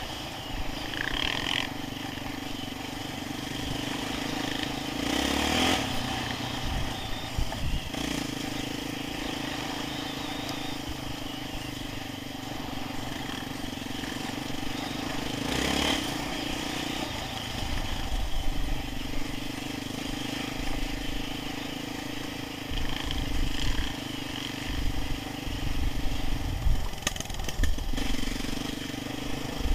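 Yamaha Raptor 660 quad's single-cylinder four-stroke engine running along a dirt trail. It holds a steady note that breaks off and picks up again about three times as the throttle is eased and reopened, with a few short rushes of noise over it.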